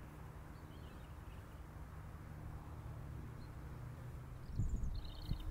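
Faint outdoor ambience: a steady low hum with a few scattered small bird chirps, then a short twittering bird call and some low bumps near the end.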